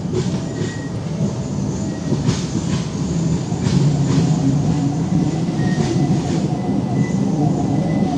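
Electric low-floor tram running slowly through a turning loop. Its low rumble grows louder as it approaches, with several sharp wheel clicks and a faint thin high squeal from the wheels.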